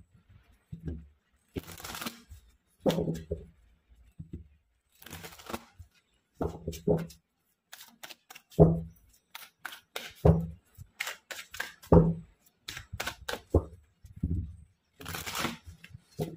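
A deck of tarot cards shuffled by hand: irregular papery rustles of cards sliding against each other, broken by short dull thuds.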